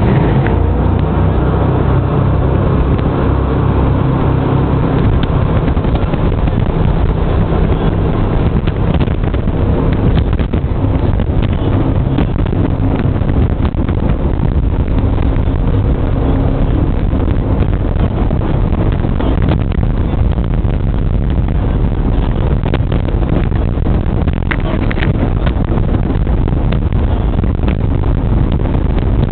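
Jet boat running at speed on a river, its engine and water jet making a loud, steady drone with wind on the microphone. A steady engine tone is clearest in the first few seconds before blending into the rush.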